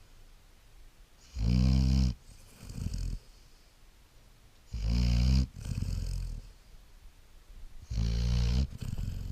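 Great Dane puppy snoring in deep sleep: three slow breaths about three seconds apart, each a loud, low, buzzing snore followed by a softer breathy one.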